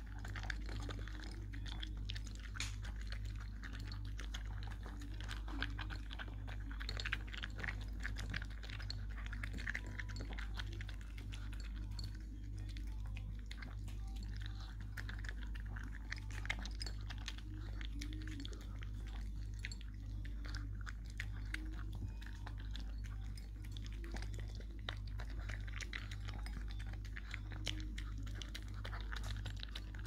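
Shih Tzu eating dry kibble: a steady run of irregular crisp crunches and chewing as the pieces are bitten.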